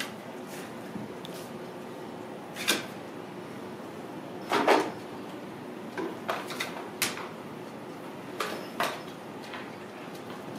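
Kittens playing with a cardboard box and a fabric cat cube: a handful of brief knocks and scrapes, the loudest a short cluster about four and a half seconds in, over a steady faint background hiss.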